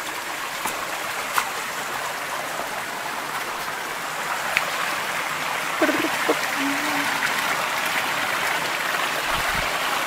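Shallow rocky forest stream running over and between boulders: a steady rush of flowing water. A few sharp clicks stand out, and there is a brief voice-like sound about six seconds in.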